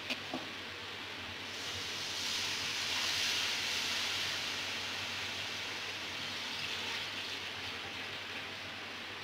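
Two light clicks of a steel spoon on an aluminium kadai, then a hissing sizzle as kadhi batter is poured into the hot oil and fried onions. The sizzle rises about a second and a half in, is loudest around three seconds, and fades toward the end.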